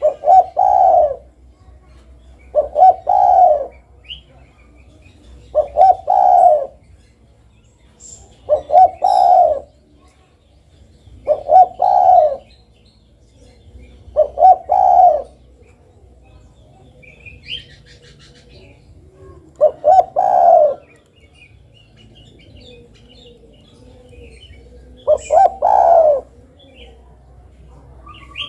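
Spotted dove (derkuku) cooing: repeated phrases of two or three low coos, each phrase about a second long and coming roughly every three seconds, with a longer pause midway. Faint chirps of another bird sound in the pause.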